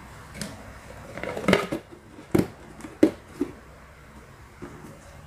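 IKEA Pruta plastic food containers being handled and set down on a surface, giving a handful of light plastic knocks and clatters, the loudest right at the end.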